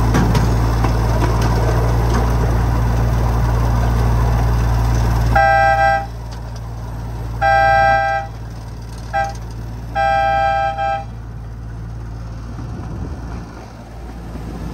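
Miniature ride-on train's engine running steadily, easing off about five seconds in. The train's two-tone horn then sounds the grade-crossing signal: long, long, short, long. After that the train rolls on more quietly.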